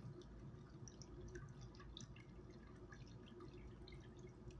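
Near silence: a faint steady low hum with many scattered soft ticks.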